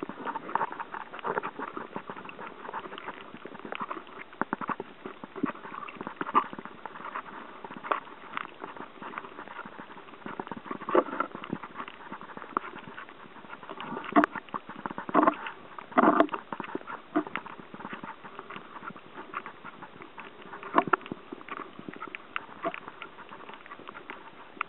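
Underwater noise picked up by a submerged camera over a coral reef: irregular crackling and clicking throughout, with a few louder brief rushes of water sound in the middle.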